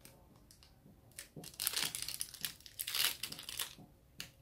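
Small plastic blind bag crinkling in irregular crackles as fingers work it open, starting about a second in.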